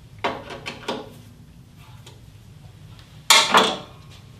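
Screwdriver turning the screws that tighten a miter bar on an aluminium band saw table, with a few short scraping clicks in the first second. About three seconds in comes a louder, sharp metal-and-wood clatter, the loudest sound here.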